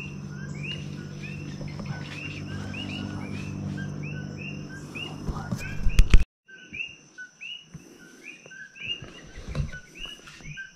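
A bird calls over and over in short rising-and-falling chirps, about two a second, over a steady high insect trill and a low steady hum. About six seconds in there is a loud rustle of camera handling and the sound cuts; afterwards the chirping goes on more faintly among light rustles.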